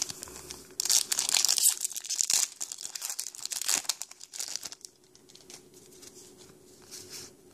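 Foil Pokémon trading-card booster pack wrapper being torn open and crinkled by hand, a run of crackly rustles that is loudest in the first half and grows faint after about five seconds.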